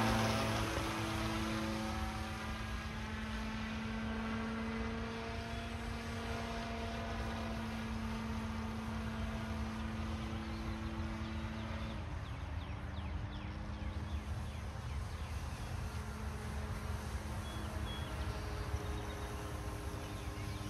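Electric motor and propeller of a 1/6-scale balsa model biplane in flight: a steady droning hum that drops in pitch at the start as the plane passes overhead, then dips and wavers again about twelve seconds in before holding a little lower. A low rumble runs underneath.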